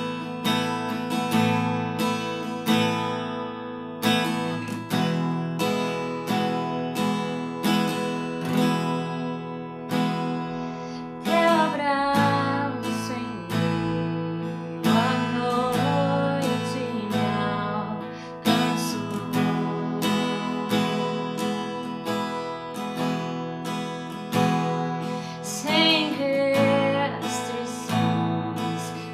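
Acoustic guitar strummed in a steady rhythm, playing the instrumental intro of an acoustic worship song, with a wavering melodic line coming in at times.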